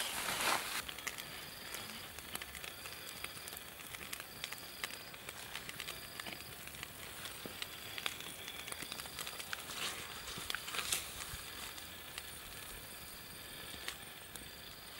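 Small wood campfire crackling with scattered pops under a frying pan of fish simmering in tomato sauce. An insect chirps in a steady rhythm, a little under one chirp a second, and a short burst of noise comes right at the start.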